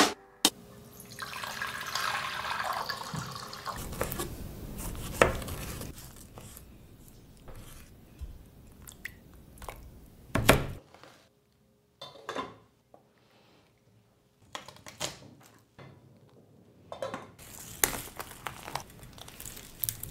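Water pouring into a stainless steel saucepan for the first few seconds. Then scattered knocks and taps of a knife cutting tomatoes and dried chiles on a plastic cutting board, with a near-silent pause in the middle.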